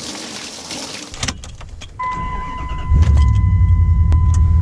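A rushing hiss for about the first second. Then a steady electronic warning tone starts about two seconds in, and the Dodge Ram's 5.9 Magnum V8 starts about three seconds in and keeps running loudly.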